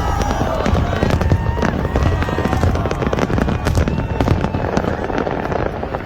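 Fireworks display going off: a dense run of sharp bangs and crackles over a steady low rumble.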